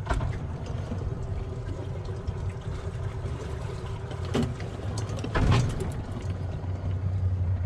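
Boat engine idling with a steady low hum, with a few short knocks and a louder clunk about five and a half seconds in.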